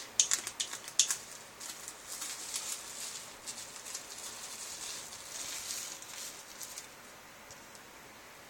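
Packaging being handled and unwrapped by hand: a few sharp clicks in the first second, then crinkling and rustling that dies away about seven seconds in.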